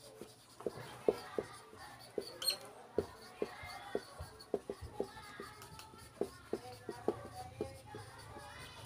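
Marker pen writing on a whiteboard: irregular short taps and strokes, about two or three a second.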